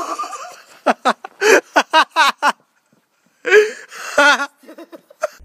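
People laughing in a run of short, quick bursts, with a second fit of laughter about three and a half seconds in.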